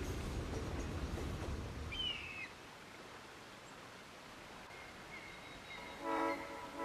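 Low rumble of a passing train that fades out about two seconds in, leaving quiet outdoor ambience with one short bird chirp. Near the end a diesel locomotive horn sounds a short multi-note blast, then a second blast begins.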